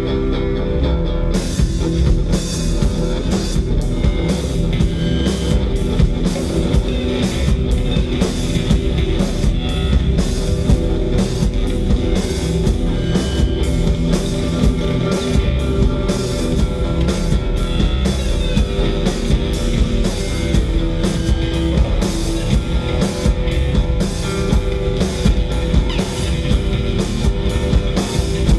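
Live band playing an instrumental passage of rock music: a strummed acoustic guitar, with the drum kit's drums and cymbals coming in about a second and a half in.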